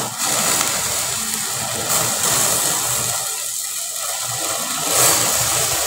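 Oily marinated chicken sizzling and flaring as it is held directly in a gas stove burner's flame, over the burner's steady rushing noise. It is being charred dry over the open flame to give it a barbecue flavour.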